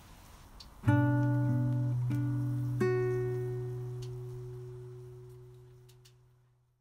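A short phrase of plucked acoustic guitar music: a few notes struck about one, two and three seconds in. The last is left ringing and slowly fades away.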